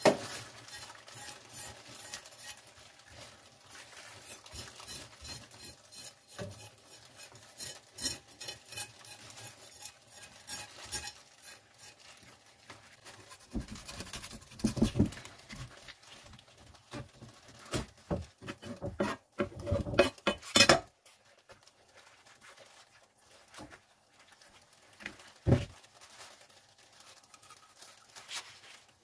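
Kitchen knife scraping the scales off a mackerel on a wooden cutting board: for the first dozen seconds a rapid run of small scratchy strokes. After that come several louder knocks of the blade chopping through the fish against the board, the last a single sharp knock near the end.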